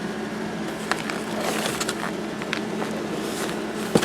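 Bags of ground coffee being handled, with irregular packaging crinkles and taps, over a steady low hum.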